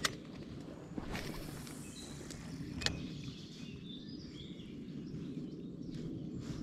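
Quiet outdoor ambience: a steady low background hiss with a few faint bird chirps, a soft click about a second in and a sharper click about three seconds in.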